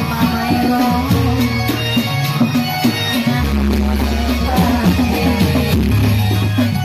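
Loud music with a deep bass line that changes note every second or two, over busy drumming and melody.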